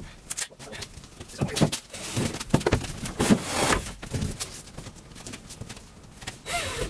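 Scattered knocks, bumps and footsteps inside an empty truck box, from people moving about and handling lumber and tools.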